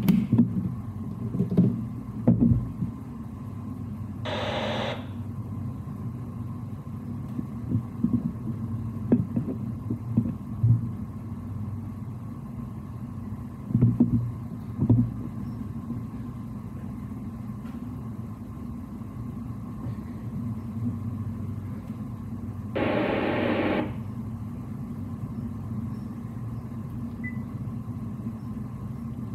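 Steady low machinery hum of a ship's bridge, with a few scattered knocks from the consoles being handled, and two separate bursts of hiss, each about a second long: one about four seconds in, the other later on.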